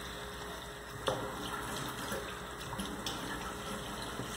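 Potatoes in tomato sauce simmering in a frying pan, a steady watery bubbling as a wooden spoon stirs them, with a sharp knock of the spoon against the pan about a second in and a few lighter ticks later.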